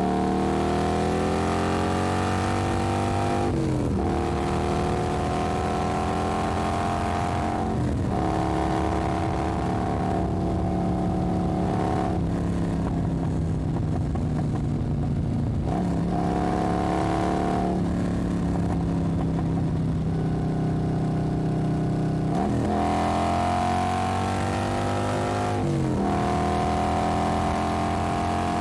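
Motorcycle engine running under way. The engine note climbs and then drops sharply at each gear change, about every four seconds, with some stretches held at a steady pitch.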